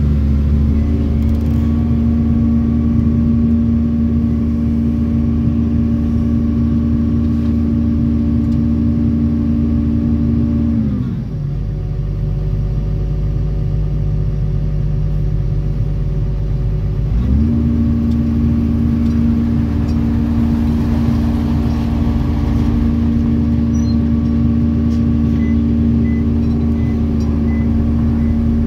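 Doosan excavator's diesel engine running at steady working speed, heard from the operator's cab. Partway through it drops to a lower speed for about six seconds, then rises back up to working speed.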